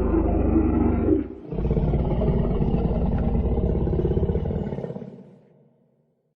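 Dinosaur roar sound effect: a deep, rough roar breaks off about a second in, and a second long roar follows and fades out near the end.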